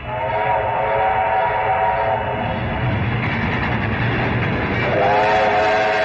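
Steam locomotive whistle blown twice over the low, steady running noise of the train. The first long blast lasts about two seconds; a second starts about five seconds in and is still sounding at the end.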